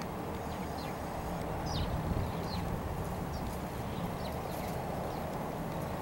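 Short, thin, downward-sliding chirps from small birds, about one a second, over a steady low outdoor rumble.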